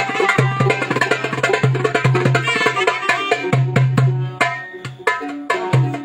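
Turkish wedding dance music played by a live band. A fast hand-drum rhythm with deep bass hits runs under a melody instrument, and the music dips briefly about four and a half seconds in before the beat returns.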